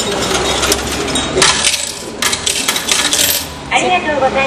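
Train ticket vending machine dispensing a ticket and change, with coins clattering down into the metal change tray in a run of sharp clinks.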